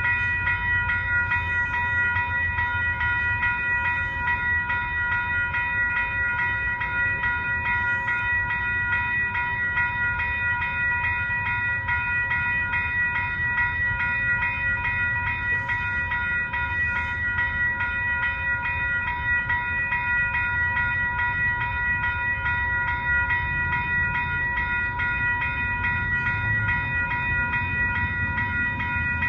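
WCH Type-4 electronic railroad crossing bells ringing continuously in a fast, even ding-ding-ding. They are sounding because the crossing has activated for an approaching train, with the gates down.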